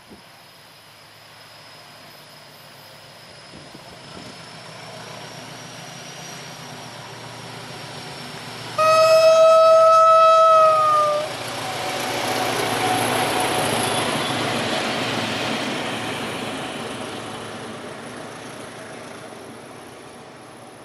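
SM31 diesel locomotive, towing a shut-down ET41 electric locomotive, approaching with its engine noise building. About nine seconds in it sounds one long horn blast of roughly two and a half seconds. The locomotive then passes with engine and wheel noise that swells and fades away.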